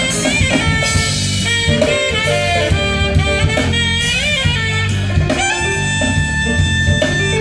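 Live jazz band playing through a PA, with a lead wind instrument soloing over the rhythm section. The solo moves in quick bending runs, then holds one long note from about five seconds in.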